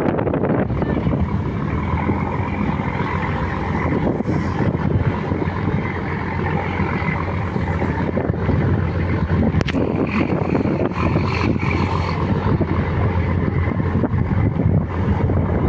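Passenger launch's engine running steadily at the jetty, a continuous low drone.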